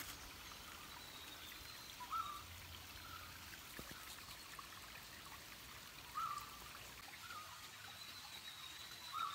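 Small forest stream trickling steadily over rocks, with a bird giving short chirps four times.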